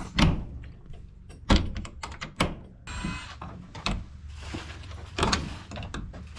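Locks on a chicken coop door being worked and the door opened and shut: a series of sharp clacks and knocks, with a short squeak about three seconds in.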